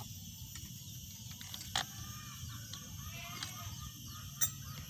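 Two short sharp metallic clicks, about two and a half seconds apart, from handling an angle grinder as its grinding disc is fitted; the grinder itself is not running. Faint bird calls sound in the background.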